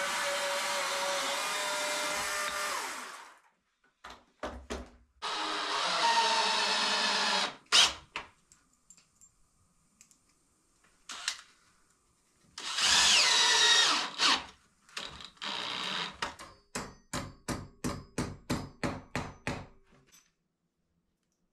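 A chainsaw running through a wooden beam, winding down about three seconds in. Then a cordless drill drives screws in several short whirring bursts, the last ending in a quick run of evenly spaced pulses, with a few knocks in between.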